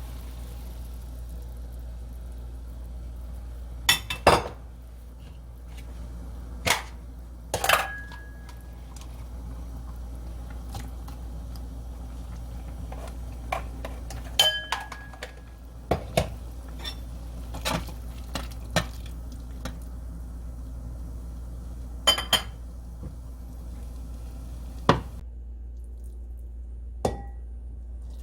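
Kitchen utensils clinking against a pot and dishes: about a dozen separate sharp knocks and clinks, two of them ringing briefly, over a steady low hum.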